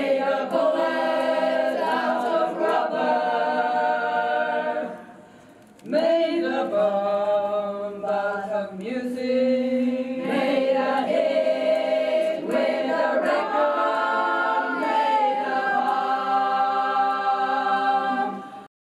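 A choir singing long held notes, several voices together. The singing fades briefly about five seconds in, starts again, and cuts off abruptly at the end.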